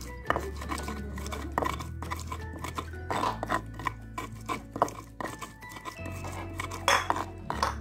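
Background music with a steady bass line. Over it come irregular scraping and crushing strokes of a pestle grinding a wet chilli-and-shallot spice paste on a stone mortar.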